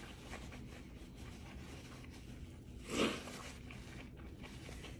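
Faint, quiet sounds of a person eating at the table, with small clicks throughout and one short, louder sound about three seconds in.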